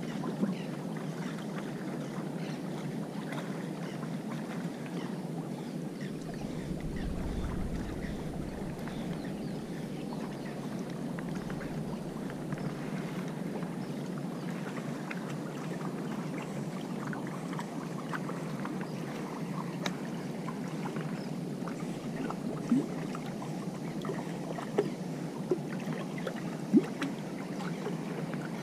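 Harbour water lapping steadily against the rocky shore, with a brief low rumble of wind on the microphone about seven seconds in and a few sharp knocks near the end.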